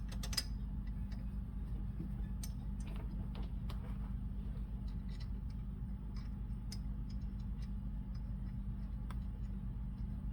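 Scattered light clicks and ticks of small metal brake parts and tools being handled while fitting a brake caliper, with a few close together right at the start, over a steady low hum.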